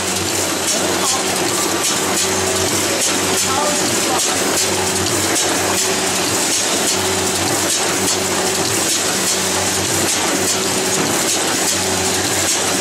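Automatic carton packing machine running steadily: a constant mechanical hum and hiss with repeated clicks and clatter from its carton-opening and filling mechanisms.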